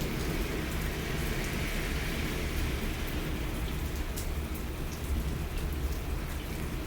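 Heavy rain falling steadily, with a continuous low rumble underneath.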